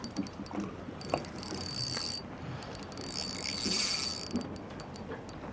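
Fishing reel's ratchet clicking in two rapid buzzing bursts of about a second each.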